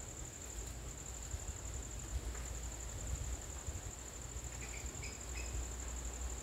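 Garden ambience dominated by a steady, high-pitched insect buzz, over a low rumble, with three short high chirps about five seconds in.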